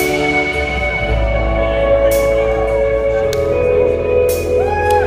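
Live rock band playing a slow, sustained passage: held electric guitar notes ring over a steady low bass note, with a short sliding note near the end.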